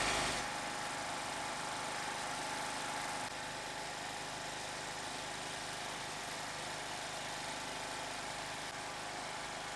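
A steady machine hum with a faint, constant high tone, like an engine running at an even speed.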